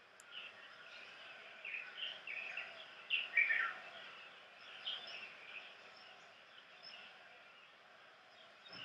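Wild birds chirping: a series of short, quick chirps that slide downward, loudest in a run about three seconds in, over a faint steady outdoor hiss.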